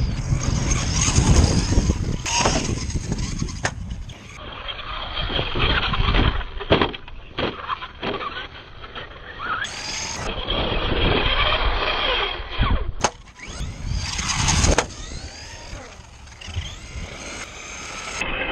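Kyosho Rage 2.0 RC truck running hard on dirt and sand. Its 14-turn brushed electric motor whines up and down in pitch with the throttle, over a rush of tyre and wind noise and several sharp knocks from bumps and landings. The sound changes abruptly every few seconds as short clips are cut together.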